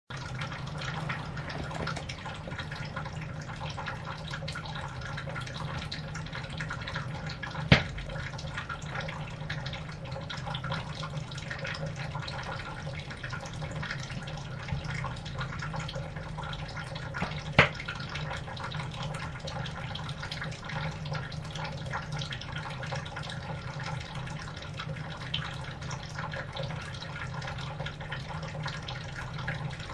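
Room tone: a steady low hum with faint ticking and crackle, broken twice by a sharp click about ten seconds apart.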